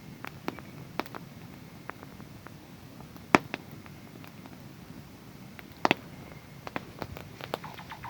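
Wood fire crackling: scattered sharp pops and snaps over a low, steady rumble of burning, with two much louder pops, one about a third of the way in and one past the middle.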